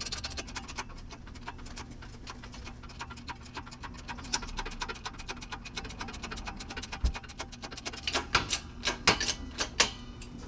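Shop press forcing the wheel hub out of a Toyota Corolla steering knuckle: a rapid run of ticks and clicks, with louder cracks and pops about eight to ten seconds in as the hub breaks free.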